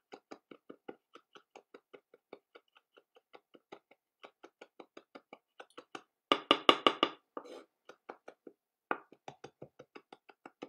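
Kitchen knife finely chopping a bird's eye chilli on a wooden chopping board: quick, even strokes about five a second, with a louder, faster run of chops about two thirds of the way through.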